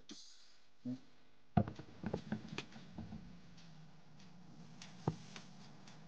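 Dickinson drip-feed diesel heater burning with its fan turned low. It gives a faint low hum with scattered light ticks and clicks, most of them in the second and third seconds and one more about five seconds in.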